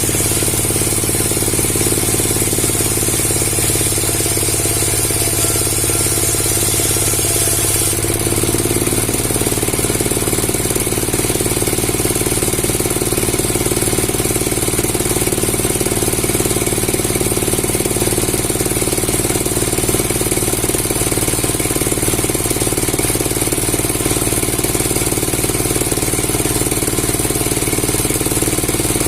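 Woodworking machinery running steadily with a loud, continuous mechanical noise that changes character abruptly about eight seconds in.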